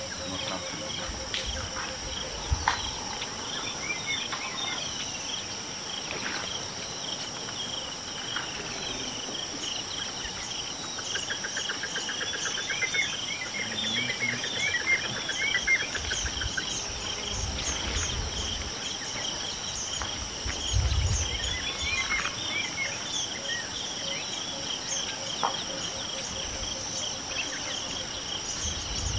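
Steady chorus of insects buzzing continuously at two high pitches, with birds chirping over it and a short trill in the middle. A few low muffled bumps come in the second half.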